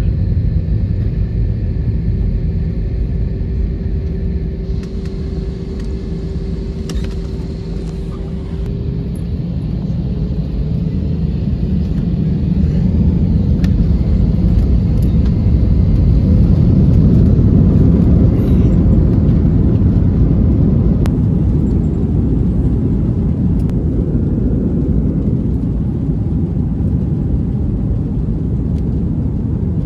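Jet airliner cabin during the takeoff roll: the engines run at takeoff power over a heavy, steady rumble from the wheels on the runway. A thin steady tone fades out about nine seconds in, and the rumble grows loudest about halfway through.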